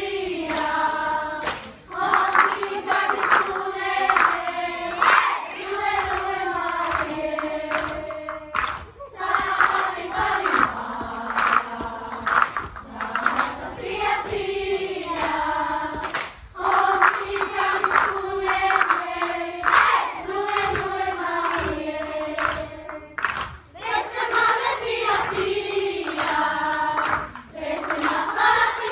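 A group of schoolchildren singing together in held phrases, with short breaks between phrases.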